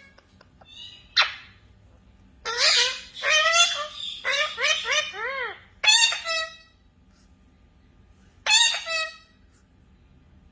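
Parrot squawking and chattering in high, pitch-bending calls: one short call, then a long run of calls ending in a quick string of rising-and-falling chirps, and a last squawk near the end.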